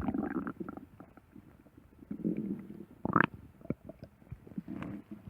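Stomach growling and gurgling in irregular bursts, with one brief higher, rising gurgle about three seconds in.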